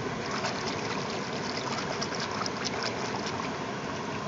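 Splashing as a hand swishes a small die-cast toy car back and forth in shallow river water to wash the mud off it, a quick run of small splashes over the steady rush of the flowing river.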